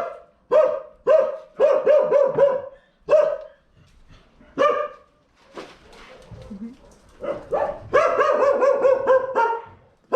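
Dogs barking in short runs of quick repeated barks, the longest run near the end.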